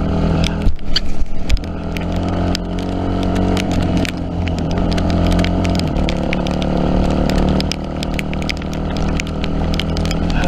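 Yamaha WR250F's four-stroke single-cylinder engine running as the dirt bike is ridden, its revs shifting up and down. A scatter of sharp ticks runs throughout, and a few loud knocks come about a second in.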